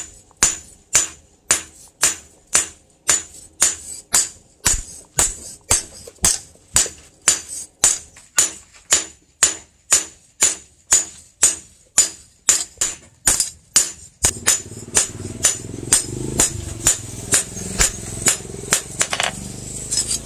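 Hand hammer striking a steel knife blade on a steel-pipe post anvil: steady ringing blows, about two a second. From about two thirds of the way in, a steady low rumble runs underneath.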